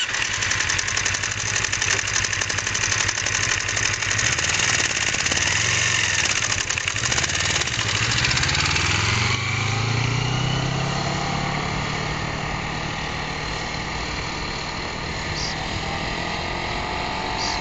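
Kawasaki Ninja 250's parallel-twin engine pulling the motorcycle away from a stop, its pitch rising and falling with the throttle and growing fainter as the bike rides off. A steady hiss runs over the first half and cuts off suddenly about nine seconds in.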